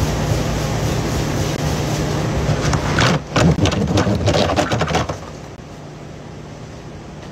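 Pizza dough being slapped and pressed on a floured counter: a quick run of sharp slaps over about two seconds, against a steady machine hum that stops abruptly about five seconds in.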